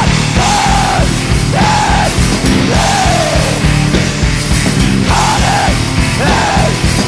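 Loud hardcore punk/screamo song: distorted guitars and busy drums, with an arching pitched line recurring about once a second.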